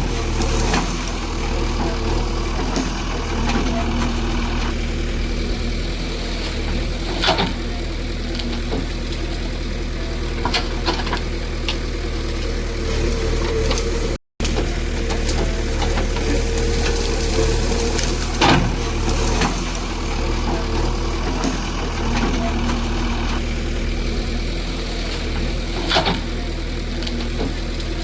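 Engine idling steadily, with a few sharp knocks scattered through. The sound drops out for a moment about halfway.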